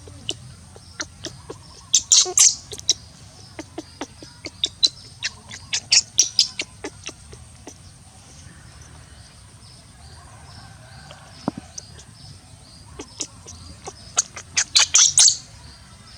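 Birds chirping: many short, high chirps in quick runs, densest in three bursts, near the start, about six seconds in and near the end, over a faint steady high whine.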